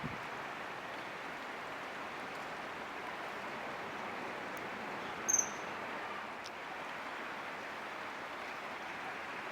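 A common kingfisher gives one short, shrill, high-pitched call about five seconds in, over a steady rush of flowing water.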